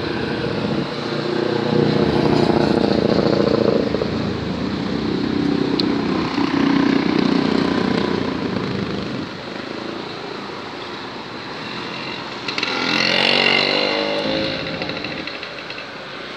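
Motorcycle traffic passing on a street, engine noise swelling and fading; a louder one goes by about thirteen seconds in.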